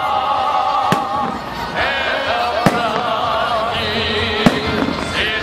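Fireworks salute: three sharp bangs about two seconds apart, over music that plays throughout.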